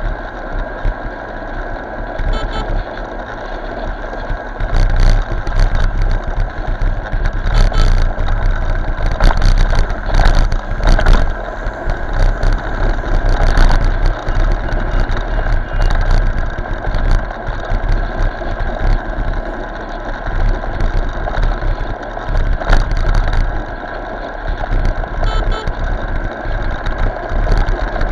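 Motorcycle on the move in road traffic: engine running under a loud, uneven low rumble, as picked up by an Eken H9R action camera's built-in microphone.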